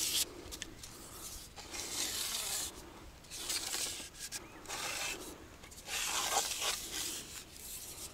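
Rubbing and rustling in repeated bursts of about a second each, with short quieter gaps between them.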